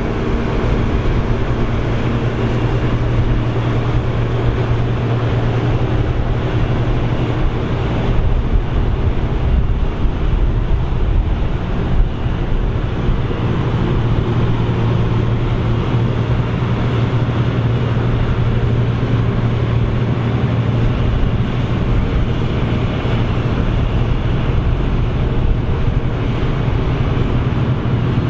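Krone BigX 700 self-propelled forage harvester running steadily at full power while harvesting corn, a constant heavy engine hum.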